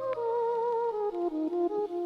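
Closing bars of a chill hip-hop track: a single sustained lead melody with vibrato, stepping downward note by note.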